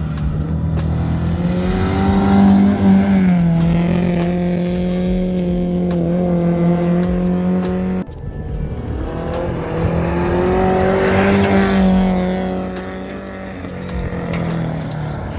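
Toyota Corolla folkrace (jokkis) car's engine running hard at high revs on a gravel track, its pitch holding steady and rising and falling a little as the car drives around. The sound breaks off suddenly about eight seconds in and picks up again with the same engine note.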